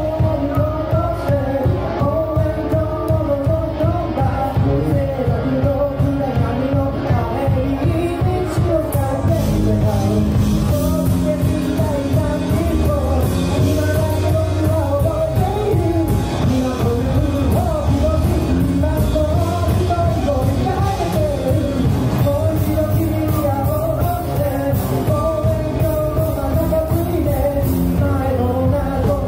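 A rock band playing: a male voice singing in Japanese over distorted electric guitars, electric bass and drums, continuous and loud.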